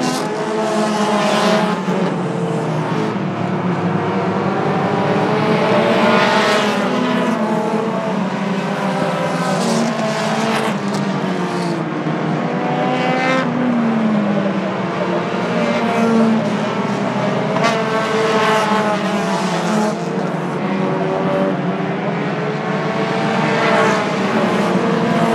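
A field of pure stock race cars running laps on a short oval track, several engines at once, their pitch rising and falling every few seconds as cars accelerate and pass by.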